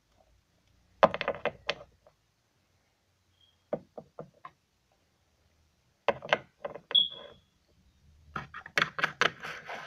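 Runs of quick knocks and taps from plastic Littlest Pet Shop figures being handled and tapped on a hard floor: about a second in, around four and six seconds, and a longer run near the end, with a short high squeak around seven seconds.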